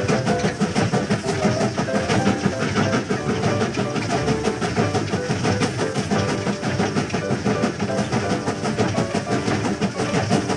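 Background music with a steady beat, mixed with a train running sound effect.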